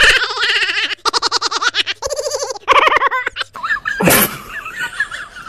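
High-pitched laughter in quick, repeated bursts for about three and a half seconds. About four seconds in there is a sharp knock, then a fainter wavering high-pitched sound.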